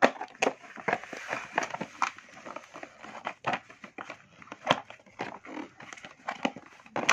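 Plastic play dough pots and a plastic dough extruder being handled against a cardboard box tray: irregular clicks, taps and light rustling.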